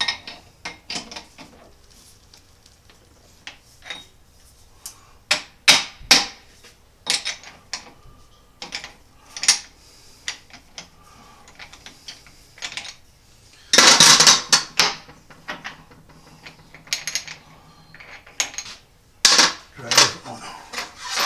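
Steel parts of an old four-jaw geared scroll lathe chuck clinking and rattling against each other as a jaw is worked into its slot. The sound is a string of scattered sharp metal clicks, with a louder burst of rattling about two-thirds of the way through.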